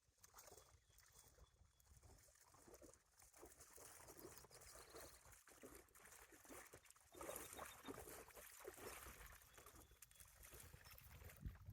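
Faint, irregular splashing and lapping of lake water.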